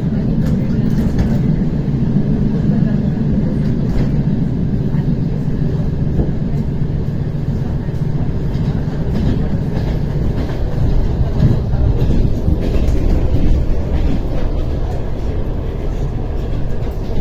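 ER9T electric multiple unit running along the track, heard from aboard: a steady low rumble of wheels and car.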